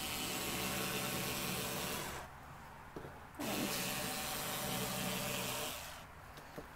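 Bosch IXO cordless screwdriver with its rotary cutter attachment running in two spells of about two seconds each, with a short pause between. The motor runs with a steady whir and hiss as the blade cuts through oilcloth.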